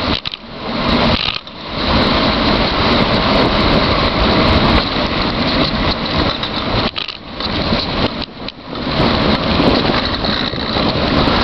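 Wind rushing over the microphone of a bicycle coasting fast downhill: a loud, even roar that drops away briefly a few times.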